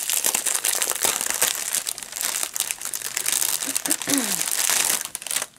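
Clear plastic packaging crinkling as hands handle a bag of diamond-painting drill packets: a dense run of small crackles that dies away just before the end.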